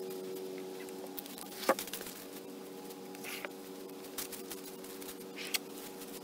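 Freshly milled walnut slabs being handled and stacked: one sharp wooden knock nearly two seconds in, then a few lighter knocks and scrapes of wood on wood. A steady low hum runs underneath.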